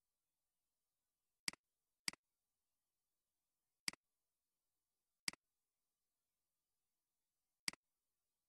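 Five sharp computer mouse clicks, irregularly spaced, each a press followed at once by a softer release, against near silence.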